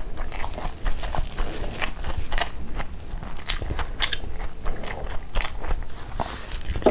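Close-miked mouth chewing a mouthful of chicken curry and fried rice: irregular wet smacks and clicks.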